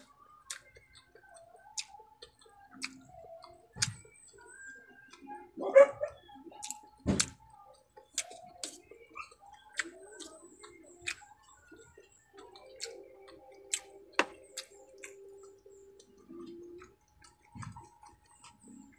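Close-up eating sounds of a person eating with her hands: scattered wet mouth clicks, lip smacks and chewing, with fingers picking at rice and food on a plate.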